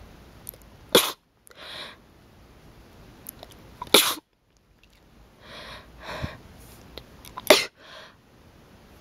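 A person sneezing three times in a row, about three seconds apart, in a sneezing fit. Softer breathy sounds come between the sneezes.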